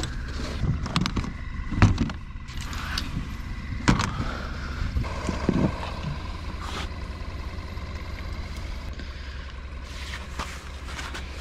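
Fishing gear being handled at a pickup's tailgate: a few sharp knocks and clicks as the tailgate and a hard-shell case are opened, over a steady low rumble.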